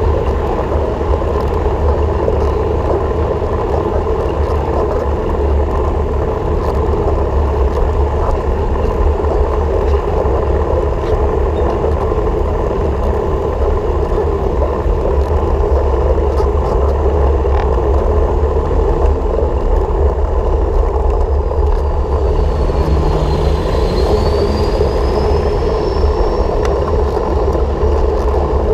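Steady travel noise from a moving vehicle: a constant low rumble with an even mid-range drone that does not change. A faint high whistle dips and then rises about twenty-two seconds in.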